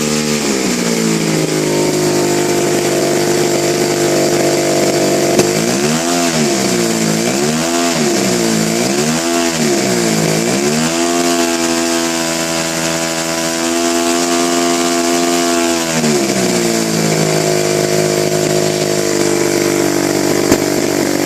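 Revolver 50 engine on a test run. It picks up speed just after the start, then the throttle is swung down and up about three times, the engine holds a higher speed, and about sixteen seconds in it drops back to a lower steady speed.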